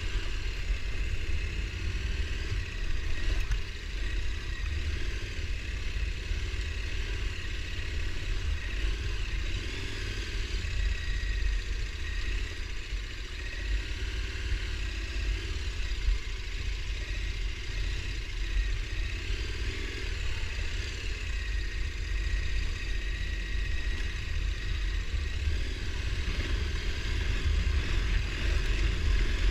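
ATV engine running steadily while riding a trail, over a constant low rumble.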